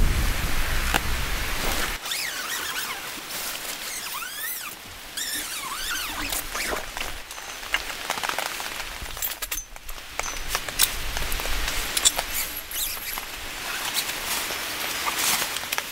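Tent and folding cot frame being handled and set up: fabric rustling and the metal frame and poles clicking and knocking, over a steady background hiss. A run of short high squeaks comes a few seconds in.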